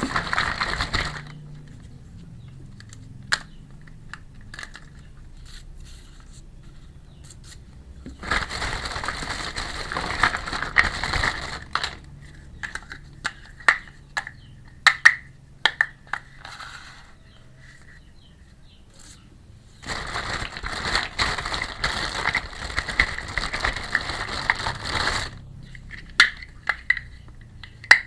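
Close-up handling of a miniature toy kitchen set and its packaging: two long spells of crinkling and crackling, with scattered small sharp clicks and taps of little pieces between them.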